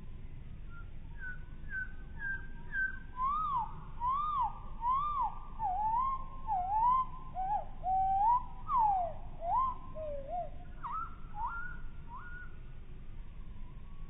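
Willow warbler song slowed down, so it sounds lower and drawn out: a run of about twenty sweet whistled notes, most sliding downward, the phrase drifting lower in pitch as it goes and ending with a few short rising notes.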